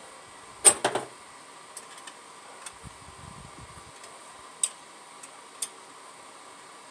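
Small metal parts and hand tools clicking and clinking while carburetor linkage is assembled: a sharp cluster of clinks a little under a second in, a few light ticks, then two more single clicks about a second apart past the middle.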